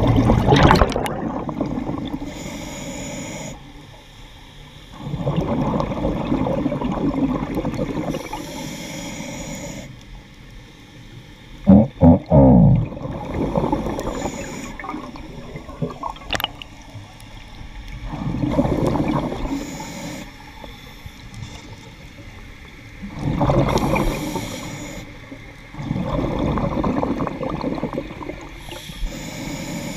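Scuba diver breathing through a regulator underwater: exhaled bubbles rush out in long bursts every few seconds, with a fainter hiss of inhalation between them. About twelve seconds in there is a short, loud, low wavering honk.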